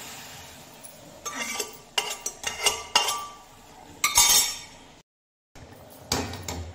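A steel ladle clinking and scraping against a steel pot as boiled vegetables are scraped out into a steel kadhai: a quick run of sharp metallic clinks over about three seconds. The sound then cuts out for half a second.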